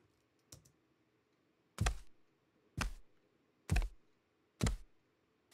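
Library sound-effect recording of bare footsteps played back on its own: soft, patty barefoot steps, evenly paced about one a second. A light click comes just before the first step.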